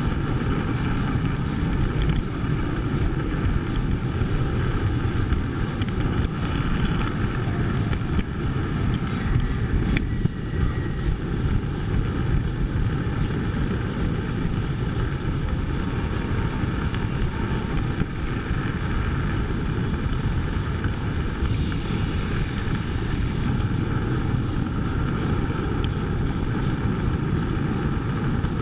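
Steady rumble and clatter of O-gauge three-rail model train wheels and motors running on track, heard close up from a camera riding along on the train.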